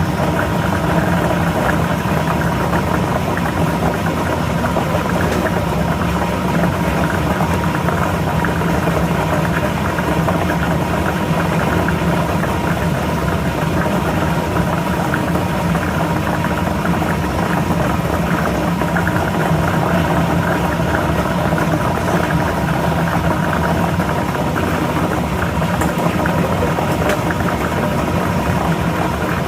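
Lottery ball machine running steadily: a motor hum with balls clattering inside.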